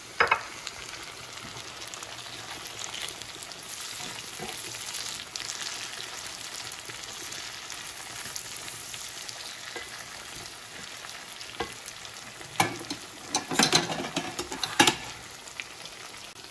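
Shiitake mushrooms, red onion and tomato wedges sizzling in oil in a nonstick frying pan, a steady frying hiss. A sharp knock just after the start, and a burst of slotted-spatula scrapes and taps on the pan near the end as it is stirred.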